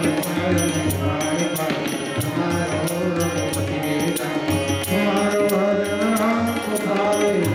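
Devotional song by a male voice with harmonium and tabla accompaniment: the harmonium holds sustained notes under a wavering sung melody, with steady tabla strokes throughout.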